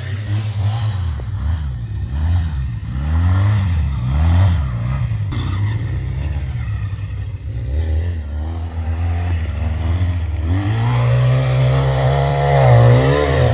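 ATV engines revving and easing off, their pitch rising and falling several times, then climbing and holding high for a couple of seconds near the end.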